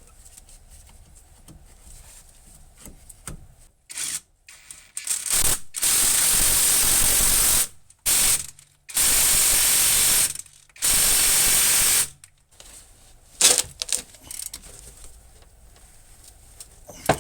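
Pneumatic tool running in three steady bursts of about a second and a half each, driving in the brake caliper bolts, with a few short knocks of metal parts between.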